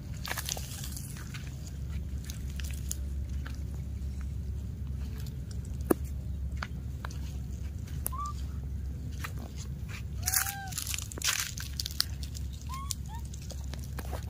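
Dry palm fronds and leaf litter crunching and crackling, in irregular snaps that cluster about ten seconds in, over a steady low rumble. A few short, high chirping calls come through, one about eight seconds in and two near the end.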